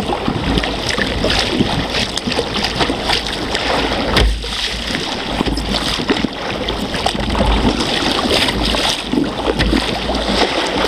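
Waves slapping and splashing against a sea kayak's hull in rough, choppy swell, with irregular bursts of spray. Gusty wind rumbles on the microphone.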